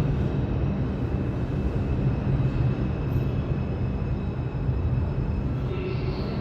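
Steady low rumble and hum of a subway station's background noise, with no distinct events.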